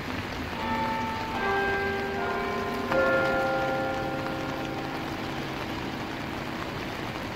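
Tower bells struck in succession, several notes over the first three seconds with the loudest near three seconds in, each ringing on and slowly fading. Under them runs the steady rush of the swollen, fast-flowing river and rain.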